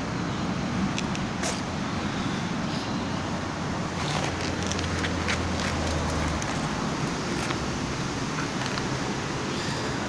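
Steady low outdoor rumble, with a few faint clicks and rustles about four to six seconds in.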